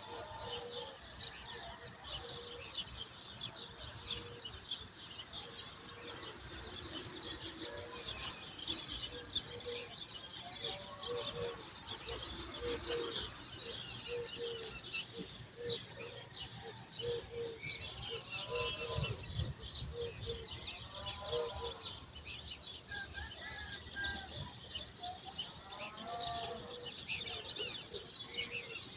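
Dawn chorus of many birds chirping busily, with repeated lower arching calls among them. A brief low rumble rises and fades about two-thirds of the way through.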